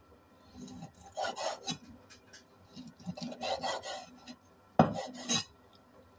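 A cleaver slicing raw chicken on a wooden cutting board: rasping, scraping strokes of the blade through the meat and along the board. Near the end, two sharp knocks of the blade on the board, about half a second apart.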